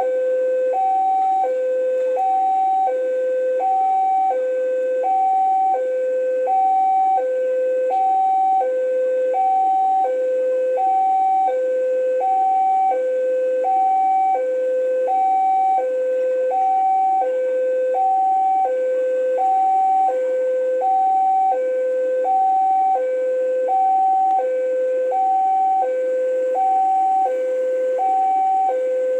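Railway level-crossing warning alarm sounding as a train approaches: two electronic tones, one low and one higher, alternating evenly at about one low-high pair per second, with no let-up.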